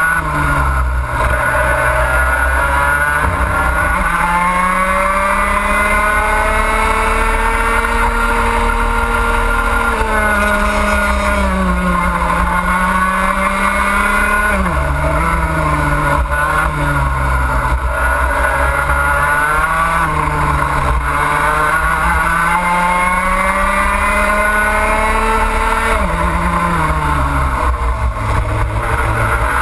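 Racing kart's two-stroke engine at full throttle, heard on board. The pitch climbs steadily along each straight and drops sharply under braking for the corners, three times over, then climbs again.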